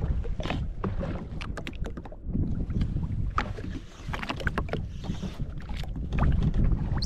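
Wind buffeting the microphone and small waves lapping against the hull of a drifting jet ski, with scattered short clicks and slaps throughout.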